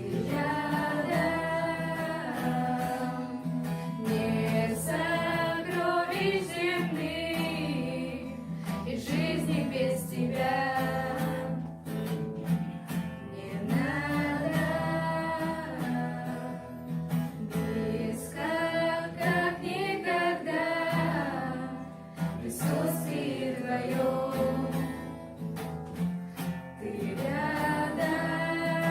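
A worship song: sung phrases a few seconds long over guitar accompaniment.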